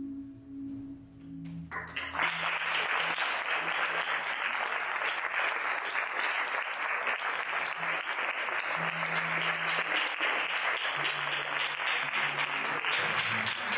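A fading ringing tone, then an audience breaks into applause about two seconds in and keeps clapping steadily. Low musical notes play underneath the clapping.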